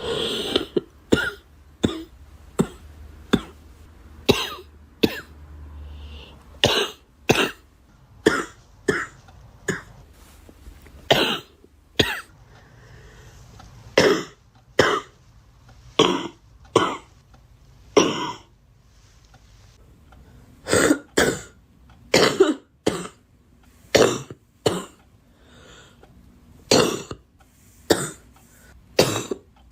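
A girl coughing over and over: short, sharp coughs about once a second, often two in quick succession.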